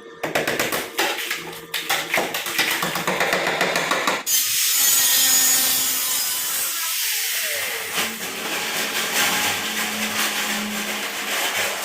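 Power tools cutting out rusted van body sheet metal: a fast rasping saw stroke for about four seconds, then suddenly a loud high hiss of metal cutting, which winds down with a falling whine, followed by a steadier buzzing tool.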